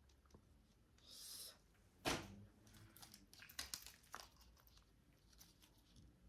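Quiet handling of paper packaging: a short hissing rustle about a second in, a single thump about two seconds in, then a run of crinkling rustles and light clicks.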